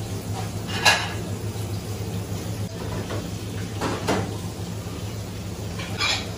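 Crockery and utensils being handled: a few sharp knocks and clinks, about a second in, around four seconds in and near the end, over a steady low hum.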